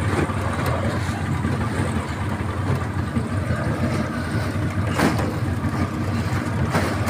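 Outboard boat motor running steadily at low speed, with a brief knock about five seconds in.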